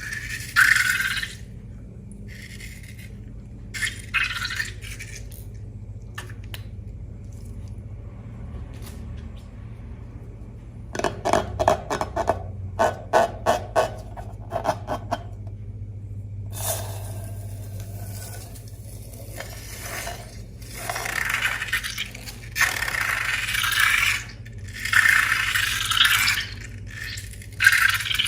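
Slime-making handling sounds: material being scraped and stirred in a container, in scattered strokes. Partway through comes a run of quick clicks and clatters, then longer stretches of scraping.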